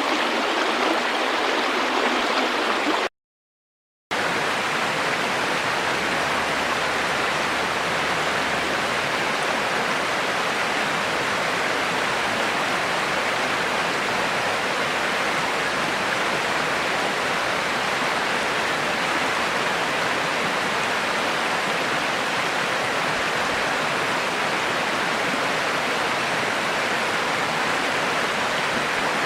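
River water rushing and flowing steadily. About three seconds in it drops out to silence for about a second, then resumes with a slightly fuller, deeper sound.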